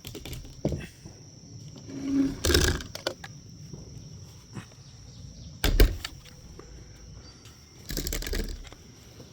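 Rifle handling at a shooting bench: knocks and clatter as one rifle is put down and another taken up, with a sharp thump a little before six seconds as the loudest sound. Crickets chirr steadily underneath.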